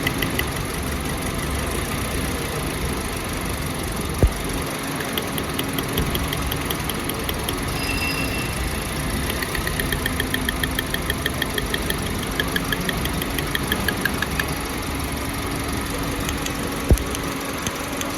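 Toyota Yaris engine idling steadily with a fast, light ticking; the car has a misfire complaint. Two sharp clicks stand out, one about four seconds in and one near the end.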